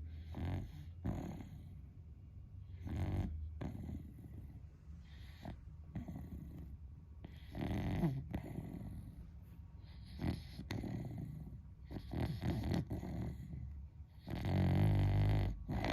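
Beagle snoring loudly in its sleep, like a person: a string of irregularly spaced snores, the longest and loudest near the end.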